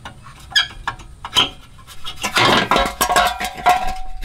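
Sheet-steel riding-mower muffler clinking and scraping against the mower's steel frame as it is worked loose by hand. A few separate clicks come first, then a rattling scrape about halfway through, then metal clinks with a brief ringing tone near the end.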